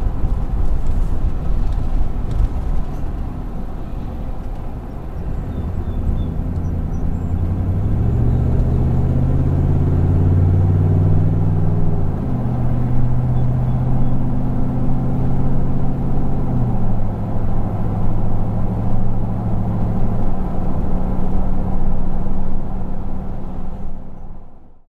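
Low engine rumble with a steady hum that shifts in pitch a few times, each time holding flat before the next step, then cuts off abruptly near the end.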